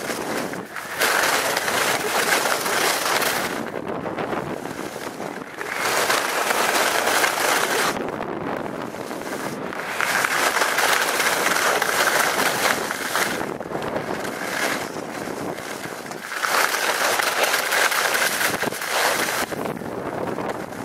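Skis scraping over hard-packed snow through a run of turns, the noise swelling and easing every few seconds as each turn is made, with wind on the microphone.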